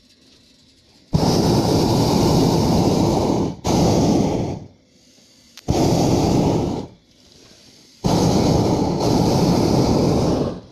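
Hot air balloon's propane burner firing in four blasts from about a second in, each starting and stopping abruptly, the first two nearly back to back, lasting from about one to two and a half seconds.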